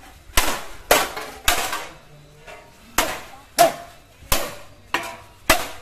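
About eight sharp clashing strikes of kalaripayattu practice weapons meeting in a sparring exchange, each with a short ringing tail. They come in a quick run of three, a pause of about a second, then five more.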